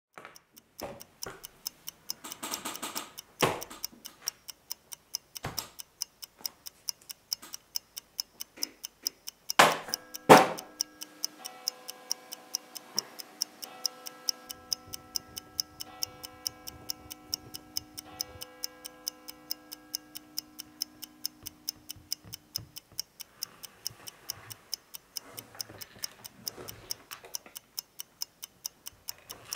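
A clock ticking steadily and quickly, about three ticks a second. About ten seconds in come two loud knocks, after which a ringing of several steady tones holds for about ten seconds and then dies away.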